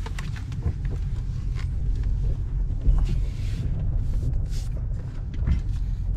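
Low, steady rumble of a Toyota Tundra pickup heard from inside the cab as it rolls slowly along a dirt forest track, with scattered small clicks and rattles.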